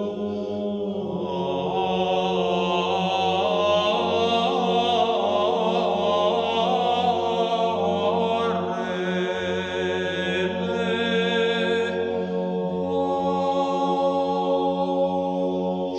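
Orthodox church chant: a sung melodic line over a steady held drone. The melody is strongest from about a second in until about three-quarters of the way through, after which mostly the drone continues.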